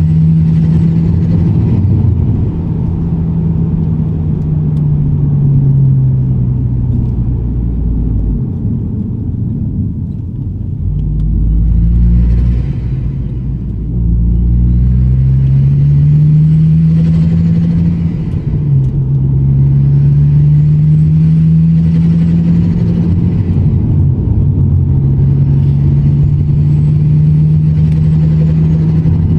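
Turbocharged Ford Focus ST engine on a hybrid turbo, pulling and easing off at low revs, its note rising and falling. High turbo whistles swell and fade over it several times as the turbo spools up and lets off. The revs stay low because the engine is being kept under 2,500 rpm after a rebuild.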